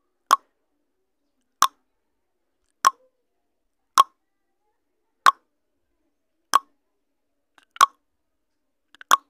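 Countdown timer sound effect: a short pop-like tick about every 1.3 seconds, eight in all, marking each second of the puzzle countdown.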